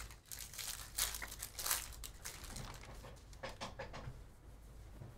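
Foil wrapper of a Panini Donruss basketball card pack crinkling and tearing as it is ripped open, in quick rustling bursts, heaviest in the first two seconds with a few more around three and a half seconds in.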